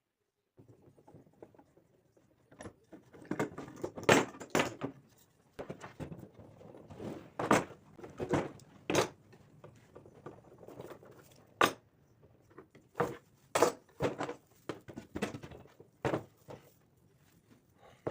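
A series of irregular knocks and clatters, some in quick clusters, starting about half a second in, as of hard objects being handled and set down on a work surface.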